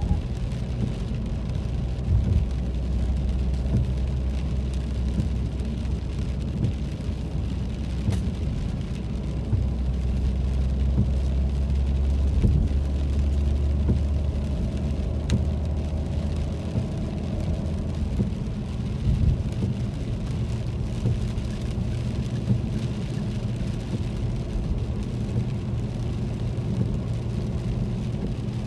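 Car driving on a wet road, heard from inside the cabin: a steady low engine and road hum with a light hiss of tyres on wet pavement. The low hum shifts in pitch about two-thirds of the way through.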